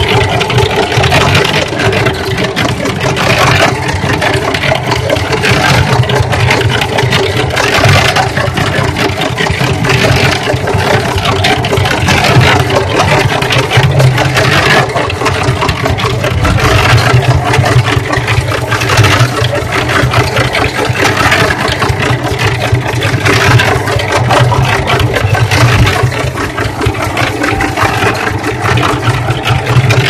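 Cement mixer running steadily, its motor and drum gearing droning as the drum turns a load of wet laundry in water.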